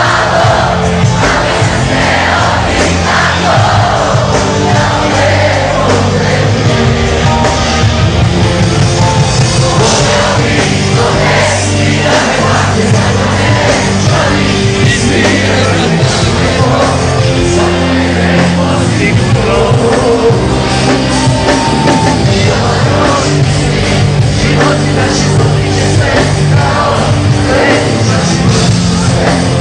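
Live band playing loudly: a lead singer over drums, bass and electric guitar.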